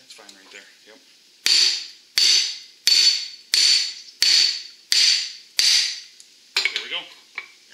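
Seven hammer blows on the steel U-joint yoke of a Ford F-350 front axle shaft clamped in a bench vise, about one and a half a second, each ringing, driving out a U-joint bearing cap. A few lighter metal clanks follow near the end.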